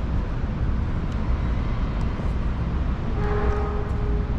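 Steady low rumble of background construction and traffic noise, with a brief steady mechanical tone sounding for about a second near the end.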